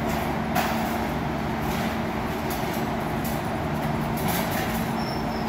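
Steady indoor ambience of a store: a constant low machine hum under an even hiss, with a faint knock about half a second in.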